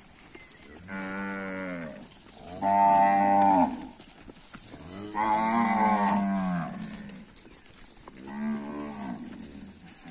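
Cattle mooing four times, one low drawn-out moo after another. The second moo is the loudest and the third is the longest, bending in pitch.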